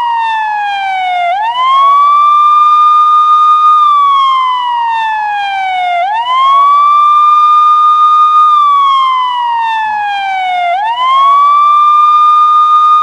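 US police car siren sounding the wail: the tone climbs quickly, holds high for about two seconds, then slides slowly down before climbing again, three times over, about every four and a half seconds.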